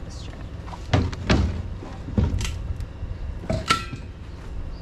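Scuba gear being assembled: a BCD strapped and fitted onto an aluminium scuba tank, giving a series of irregular knocks and clunks. A sharper knock near the end leaves a brief ring.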